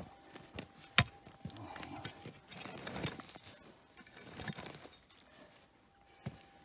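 A digging tool strikes hard ground once, sharply, about a second in, then scrapes and crunches through soil and gravel as dirt is dug out of a hole, twice.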